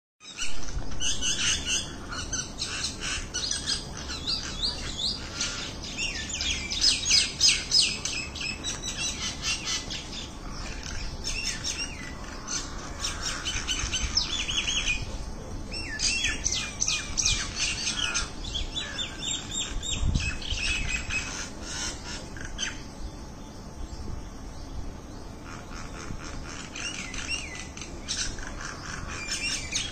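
A small group of common mynas calling together: a dense run of quick chattering notes that slide in pitch, busiest in the first half and thinning out later.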